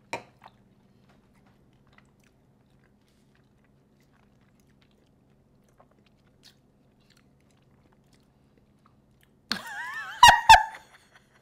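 People eating, mostly quiet apart from a few faint clicks. Near the end comes a brief high, wavering vocal squeal with two sharp knocks on top of it, the loudest part.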